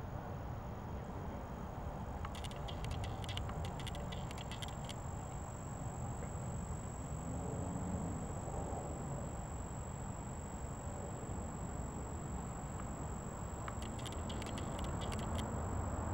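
Outdoor ambience: a steady low rumble with a thin, high steady tone over it, and two spells of rapid ticking, one a couple of seconds in and one near the end.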